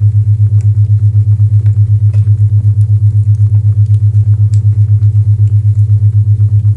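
A loud, low isochronic tone pulsing on and off evenly several times a second, over faint crackling of a fireplace.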